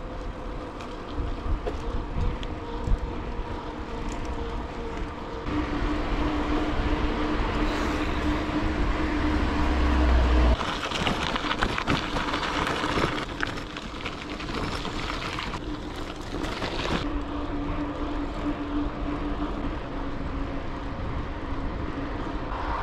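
Mountain-bike riding noise: wind buffeting the microphone and a steady tyre hum, with rougher, louder rolling noise for a few seconds midway.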